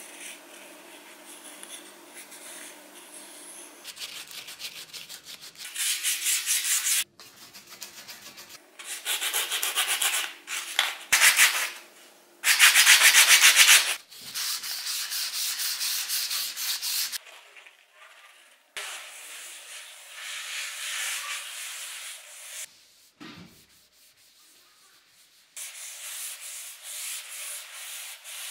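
Sandpaper rubbed by hand over wood (a bamboo cutting board and wooden utensils), in several bursts of quick back-and-forth scratchy strokes with short pauses between.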